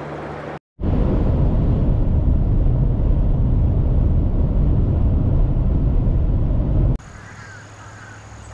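Steady low rumble of a car driving, road and wind noise, starting suddenly about a second in and cutting off near the end to a much quieter background.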